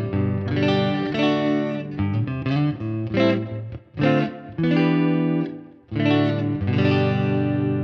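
Electric Telecaster-style guitar played through its neck pickup alone, in the middle position of the earliest two-pickup Telecaster wiring, with no blend and no tone control in circuit. Picked notes and chords ring out in phrases, with short breaks about four and six seconds in.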